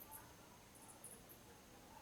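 Faint, high-pitched insect chirping: two quick groups of short chirps, one near the start and one about a second in, over a thin, steady high trill.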